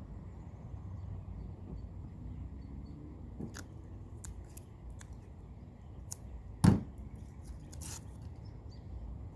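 A few light clicks and taps, then one sharp, loud knock about two-thirds of the way through and a brief scrape soon after, over a low steady rumble: parts being handled during work on a wood stove's chimney pipe.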